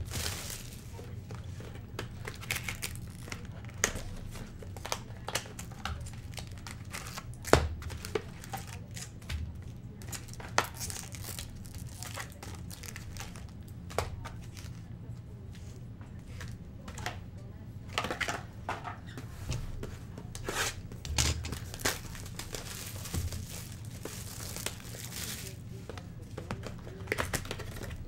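Cellophane shrink-wrap and foil trading-card packs being handled: irregular crinkling and rustling with scattered sharp taps as the packs are lifted out of the box and stacked, over a steady low hum.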